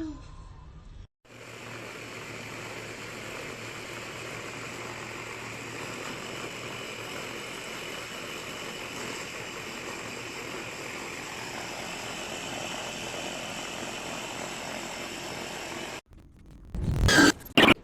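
Electric food processor / meat grinder motor (Gaabor 2L MG-15M01A) running steadily for about fifteen seconds, then switching off abruptly. A few loud knocks follow near the end.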